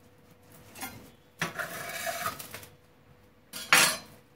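Plastic cling film rustling over a chicken breast on a granite worktop, then a short, sharp clatter near the end as a steel santoku knife is picked up off the stone counter.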